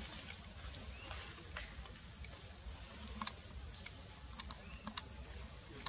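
Two short, high-pitched chirping calls from an animal, about four seconds apart, each sliding quickly up and then holding briefly. A few faint clicks come between them.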